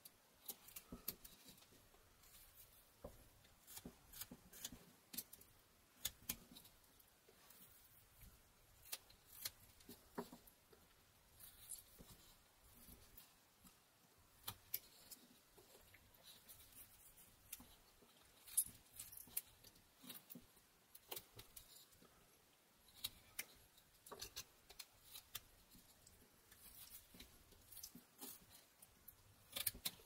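Rough Rider pocket knife blade cutting small notches into a pine carving: a faint, irregular string of short, crisp cutting clicks, a few a second.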